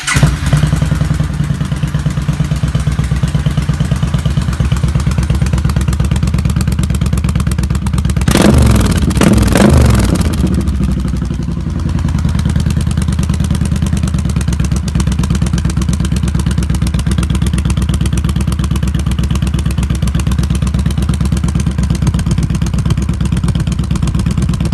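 2016 Yamaha Star Stryker's V-twin idling through a Vance & Hines Twin Slash Staggered exhaust, with a ticking from the exhaust that the owner links to the quiet baffle fitted in the upper pipe. The throttle is blipped briefly about eight seconds in, pitch rising and falling, then it settles back to a steady idle.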